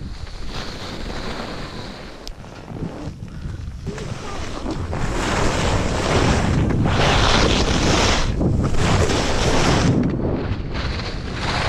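Wind rushing over the microphone of a downhill skier, with the hiss of skis scraping over packed piste snow. Quieter at first, it grows louder about five seconds in as the skier picks up speed.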